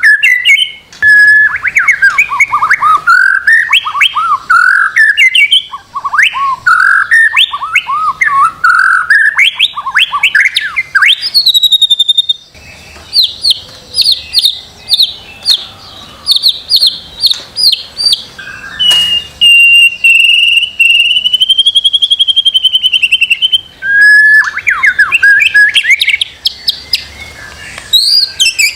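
White-rumped shama (murai batu) singing a loud, varied song of whistled phrases: swooping rising and falling notes, a quick run of rapid repeated high notes about halfway through, then one long wavering whistle held for several seconds before the swooping phrases return.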